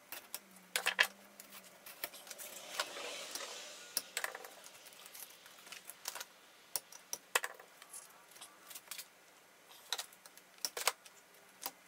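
Quiet scattered clicks and taps of hands working a slit rubber golf grip off a club shaft held in a vise, with a soft rubbing, peeling sound about three seconds in.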